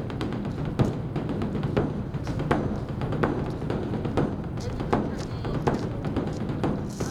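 Beopgo, the large Korean Buddhist dharma drum, beaten with two sticks in a dense continuous rhythm, with a heavier accented stroke about every second and lighter strokes between. It is the drum rite that announces the evening service.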